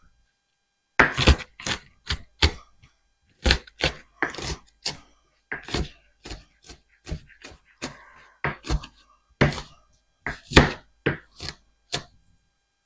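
Knife chopping a sweet onion on a cutting board: sharp, irregular knocks, roughly two a second, starting about a second in, as the onion is cut fine.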